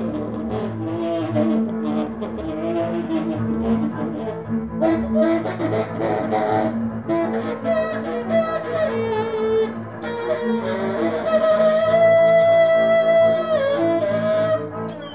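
Tenor saxophone and bowed double bass playing together. The bass holds steady low bowed tones throughout. The saxophone comes in about five seconds in and sustains a long high note near the end, the loudest part.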